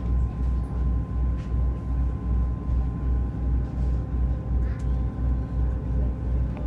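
Running noise inside a moving passenger train: a steady rumble with a low, even pulsing about three times a second and a faint steady hum over it.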